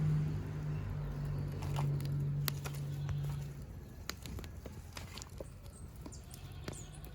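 Scattered light knocks and taps as roasted breadfruit are lifted off an open wood fire, over a steady low hum that cuts out about three and a half seconds in.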